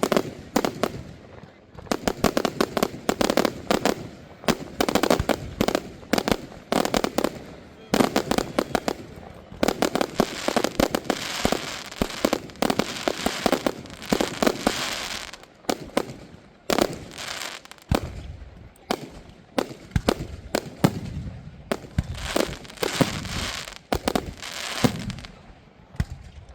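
Fireworks display going off in rapid volleys of sharp bangs, with dense stretches of crackling and a few louder reports.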